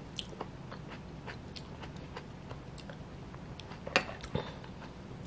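Metal spoon moving through tomato cold soup in a ceramic bowl: faint scattered clicks, with two sharper clinks about four seconds in.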